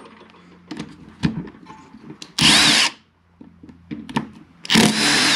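Cordless power driver running in two short bursts of about half a second, a few seconds apart, turning a long bit in the screws of an alternator's end housing. Small clicks and knocks of metal parts being handled come in between.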